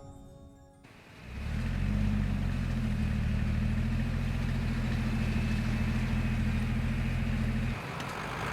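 An engine running steadily with a low, even drone. It fades in about a second in and cuts off abruptly near the end.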